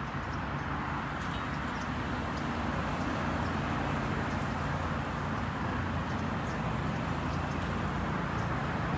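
Steady rushing outdoor noise with a low hum underneath and faint scattered high ticks.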